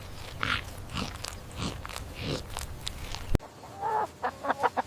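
A soft, noisy stretch with faint irregular bursts, then an abrupt cut to a chicken clucking in short calls for the last second or so.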